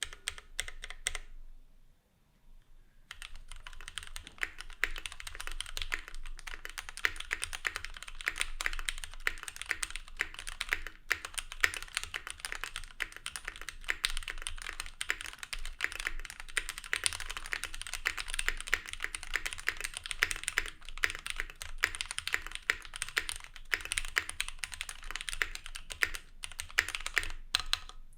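Typing test on a stock Keychron Q1 mechanical keyboard with Gateron Phantom Brown tactile switches and stock ABS keycaps. A few keystrokes, a brief pause, then steady fast typing with dense clacking keystrokes.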